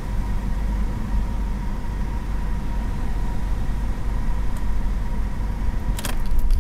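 BMW E46's N42B20 four-cylinder petrol engine idling steadily, with a faint steady high whine running through it. A sharp click comes about six seconds in.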